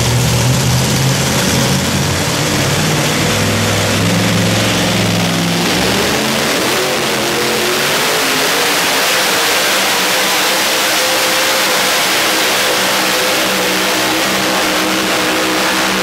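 Two-wheel-drive pulling tractor's supercharged engine at full throttle, pulling the weight sled. It is loud and steady throughout, and about six seconds in the sound shifts higher and harsher as the tractor gathers speed down the track.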